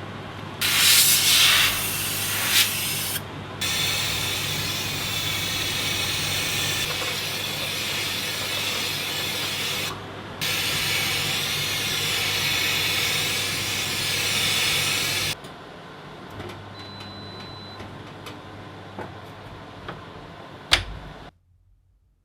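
Compressed air hissing in three long bursts over a steady machine hum. The hum carries on more quietly after the last burst, a sharp click comes near the end, and then the sound cuts off.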